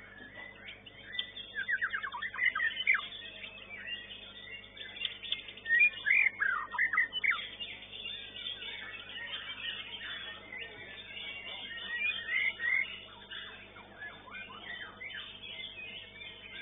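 White-rumped shama (murai batu) song: loud, varied whistles and fast trilled phrases that rise and fall in pitch, coming in bursts with the loudest about two seconds in and again around six to seven seconds. A faint steady electrical hum lies underneath.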